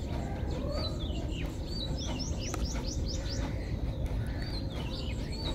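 Small birds chirping over and over in the background, many short quick chirps, over a steady low rumble of background noise.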